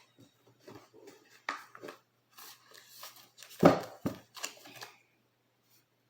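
Tarot cards being handled and laid out: a string of irregular rustles, slides and snaps of card stock, the loudest snap a little past halfway through.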